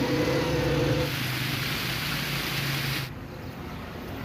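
A motor vehicle engine running with a steady low hum under a loud rushing hiss. The hiss cuts off abruptly about three seconds in, leaving a quieter background.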